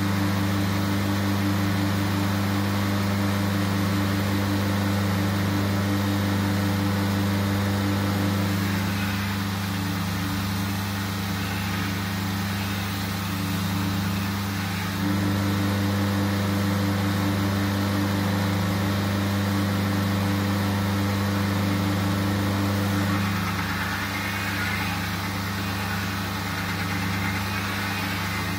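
Belt grinder running with a steady motor hum, while the edge bevel of a steel shashka blade is ground on the belt. The blade is pressed to the belt twice, from about eight seconds in to fifteen and again from about twenty-three seconds on, each time adding a rough grinding hiss over the hum.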